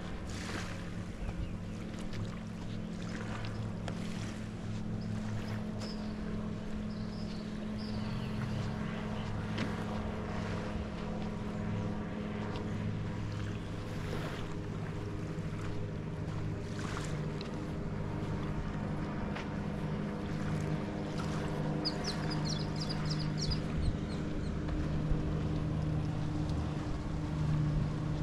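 An engine idling steadily, a low even hum that holds its pitch. A few quick high chirps sound briefly near the end.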